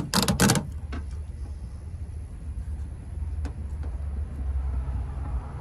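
Plastic PDR reflector board shifted on its flexible arm, with a few quick clatters in the first half-second, then a steady low rumble.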